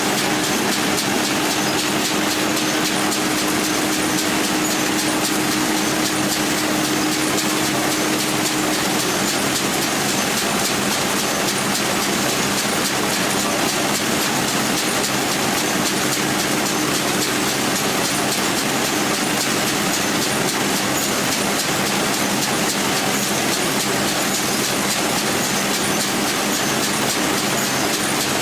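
Farm machinery running steadily: a constant engine hum under a dense, rapid mechanical clatter of working parts.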